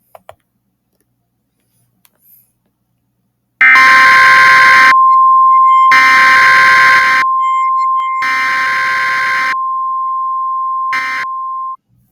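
Emergency Alert System SAME header data: three harsh, buzzy bursts about a second long each, a second apart, with a short fourth burst near the end. A steady single alert tone runs under them from about four seconds in and cuts off just before the end.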